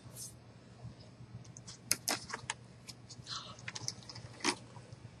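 Scattered light clicks, taps and rustles of a cardboard board book being picked up and handled, with the sharpest taps about two seconds in and again near the end. A low steady hum runs underneath.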